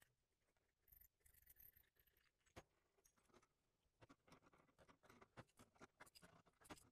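Near silence with faint scattered clicks and taps, more frequent in the second half.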